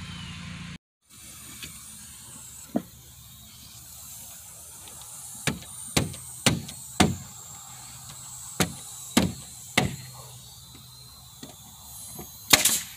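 Nail gun firing fasteners into the wooden wall of a raised garden bed: about nine sharp cracks, several in quick runs about half a second apart, the loudest near the end.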